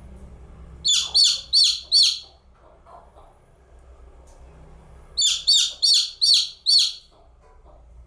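Newly hatched chicken chick peeping: two runs of loud, falling chirps, four in quick succession about a second in and five more a few seconds later.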